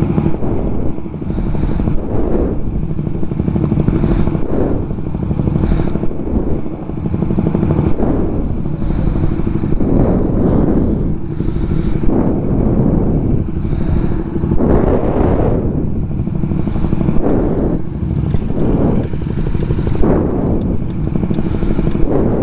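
BMW S1000RR sport bike's inline-four engine running under way, its revs swelling and falling again and again, over a steady rush of low noise.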